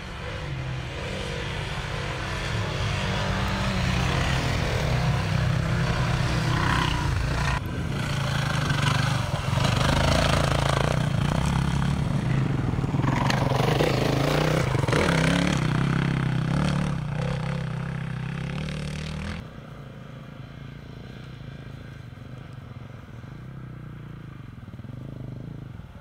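Dirt bike engines revving over rough ground, the pitch rising and falling with the throttle. About three-quarters of the way through the sound drops suddenly to quieter engine noise.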